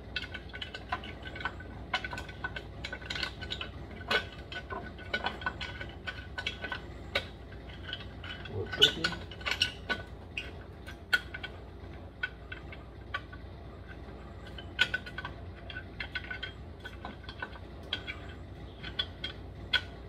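Light, irregular metal clicks and clinks as a lawnmower muffler and its exhaust bolts are handled and fitted against a Tecumseh engine by hand.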